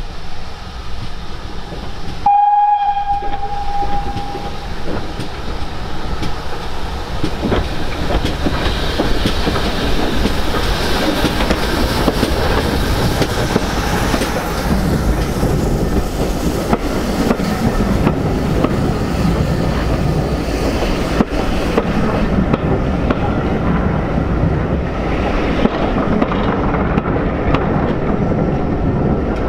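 Steam whistle of GWR 94xx pannier tank 9466, one steady blast about two seconds in lasting about two seconds. The train then runs close by, wheels rumbling and clicking over the rail joints as the coaches pass.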